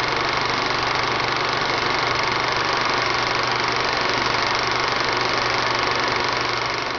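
Steady mechanical whirring sound effect laid under an animated logo intro, even in level throughout.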